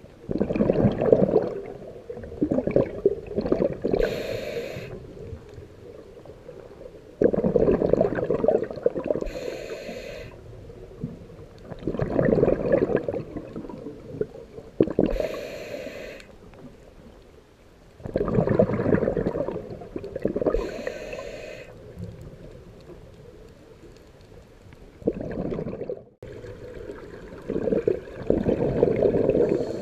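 Scuba diver breathing through a regulator underwater: about five breaths, one every six seconds or so, each a bubbling rush of exhaled air followed by the short hiss of an inhale.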